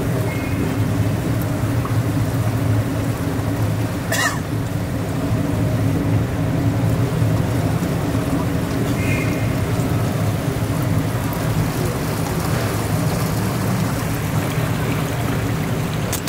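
Tour boat's motor running with a steady low drone, with a brief high sound about four seconds in.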